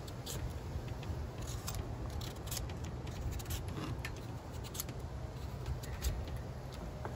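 Vegetable peeler scraping the skin off a butternut squash in a run of short, irregular strokes, over a steady low rumble.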